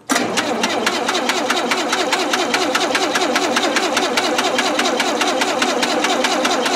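Starter cranking the engine of an old Lincoln SA200 arc welder, which comes in abruptly and turns it over at an even rhythm of several compression pulses a second without the engine catching. This is a cold start on a gas engine that has sat for about six months.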